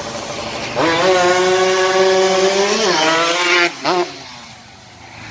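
Yamaha RX-King single-cylinder two-stroke engine revved up hard and held at high revs for about three seconds, then dropping off, followed by one short throttle blip.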